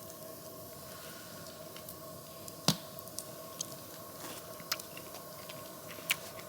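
A faint steady hum with a few sharp clicks or taps, the loudest about two and a half seconds in.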